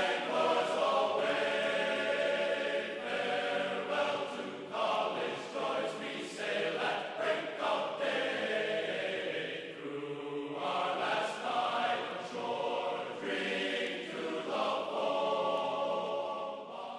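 Background music of choir-like sustained voices, with long held chords, fading out at the end.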